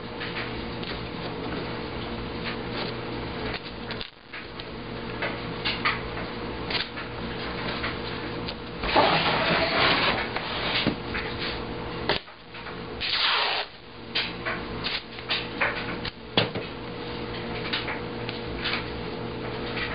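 Newspaper and tape being handled over the glass of a wooden insect drawer: paper rustling and small taps. About nine seconds in comes a louder rubbing scrape as the drawer is turned around on the table, and a shorter one about thirteen seconds in, over a steady low hum.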